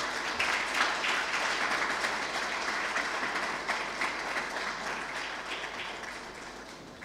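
Audience applauding, swelling over the first second and then slowly dying away.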